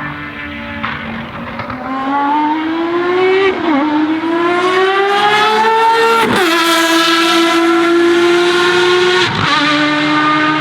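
Ferrari FXX Evoluzione's V12 engine accelerating hard, its revs climbing steadily and dropping sharply at three upshifts, about a third of the way in, past halfway and near the end. It grows louder as the car comes closer.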